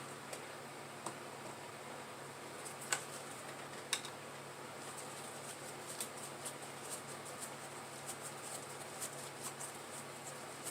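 Scattered light clicks and taps of small parts being handled, over a steady low hum; two sharper clicks come about three and four seconds in.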